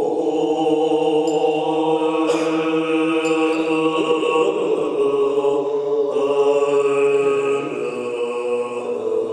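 Tibetan Buddhist monks chanting together in long held notes, multiphonic voices with a ringing overtone sounding high above the chanted pitch. A short sharp stroke with a ringing tail cuts in about two seconds in, and a fainter one a second later.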